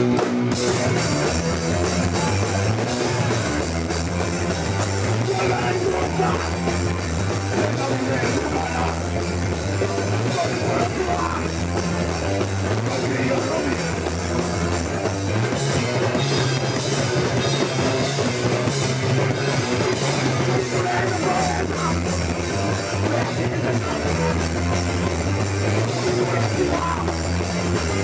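Hardcore punk band playing live: full band with a drum kit, loud and continuous with no break.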